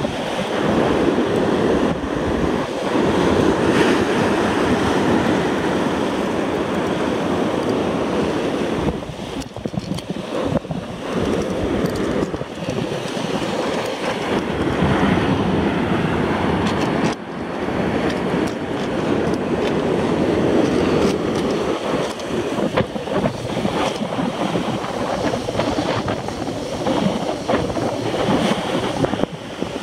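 Sea surf breaking and washing over shoreline rocks, with wind buffeting the microphone; a steady rushing noise that eases briefly about nine and seventeen seconds in.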